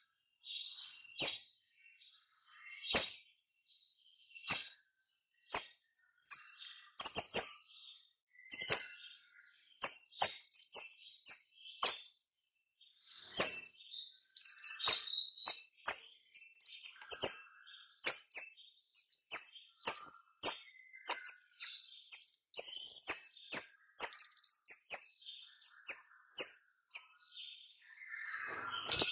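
Caged kemade songbird calling in short, sharp, high chirps, at first one every second or two, then from about ten seconds in a fast, close-packed run of several notes a second: the dense 'nembak' song used to trigger other kemade into singing.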